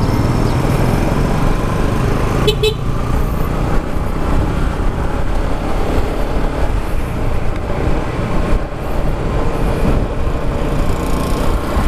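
Wind rushing over the microphone and road noise from a Yamaha XMAX 300 maxi-scooter riding along a street, with a brief horn beep about two and a half seconds in.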